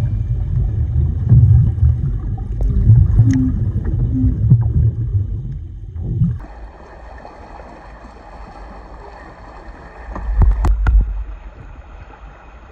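Muffled underwater rumble and gurgle of lake water and bubbles, heard through an iPhone in a waterproof housing as a swimmer dives. About six seconds in it changes abruptly to a quieter, steady hiss, with a brief loud low rumble near the end.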